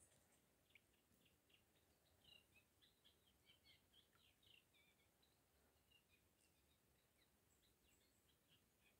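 Near silence with faint birdsong: a small bird chirping in short quick notes, busiest from about two to five seconds in.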